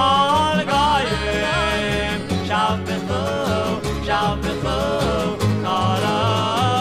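Music: a 1960s Jewish folk song with acoustic guitar strumming over a steady pulsing bass line and a sung vocal melody whose pitch glides between notes.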